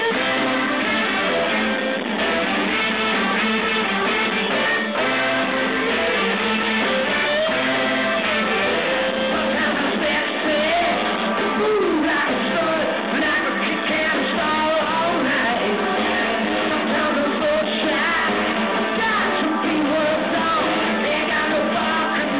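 A live rock-and-roll band with saxophones, trumpet, electric guitars, keyboards and drums playing at a steady volume, with a voice or horn line weaving over it in the second half. It was recorded on a phone, so it sounds thin, with no deep bass and no top end.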